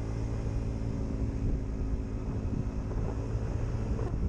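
Motorbike engine running steadily at cruising speed, its note holding level, with wind noise on the microphone.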